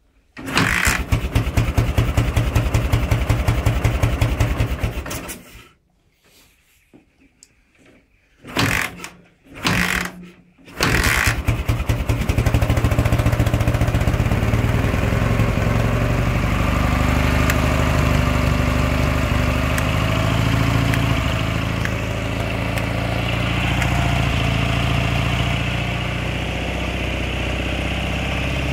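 A 1967 Dnepr MT-9's 650cc boxer twin starts, runs about five seconds and dies away. After two short bursts it catches about eleven seconds in and settles into a steady idle.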